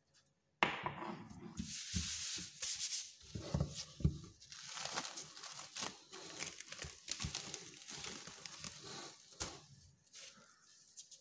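Clear plastic wrap crinkling and rustling as it is peeled off a stainless-steel mixing bowl, a dense crackle that starts about half a second in and dies down near the end.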